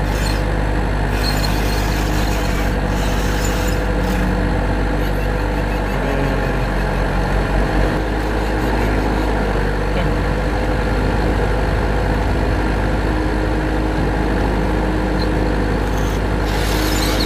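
Steady, unbroken mechanical drone like a running motor or engine, with a strong low hum and several steady tones.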